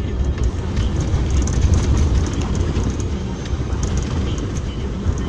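Steady low rumble of a car driving on a wet road, engine and tyres heard from inside the cabin.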